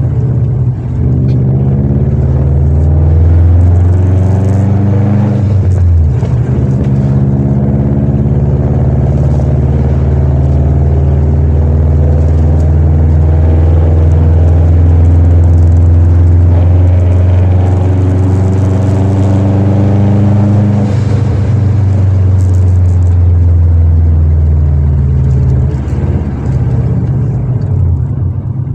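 Straight-piped Subaru Impreza WRX's turbocharged flat-four engine rumbling through its open exhaust, heard from inside the cabin while cruising. The engine note rises over the first few seconds, dips briefly about six seconds in, then holds steady before dropping lower and wavering near the end.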